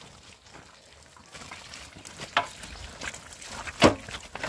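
A metal wheelbarrow loaded with hollow concrete blocks being pushed over rough, stony ground: scuffing and rattling with a couple of sharp knocks, the loudest near the end.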